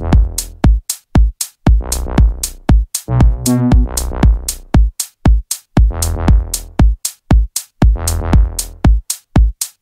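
Background electronic music with a steady drum-machine beat.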